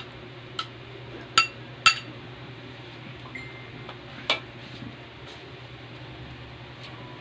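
A metal spatula clinking against a ceramic bowl as food is scraped out of it into a wok: three sharp, ringing clinks in the first two seconds, then one more a little past four seconds in. A low steady hum runs underneath.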